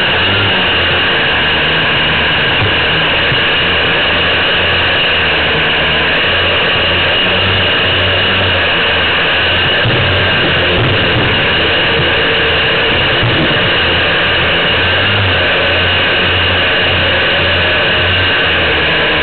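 Radio-controlled model PBY Catalina's motors and propellers running steadily at close range, heard from a camera on the airframe, with a high steady whine over an uneven low rumble as the model moves over snow.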